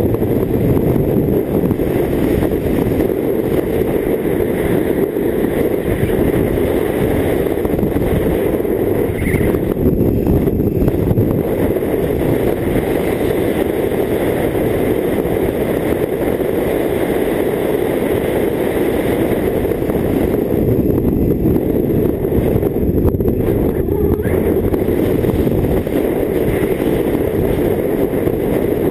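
Steady wind rush buffeting the microphone on a moving BMW K1600GT motorcycle, with the bike's inline-six engine running underneath.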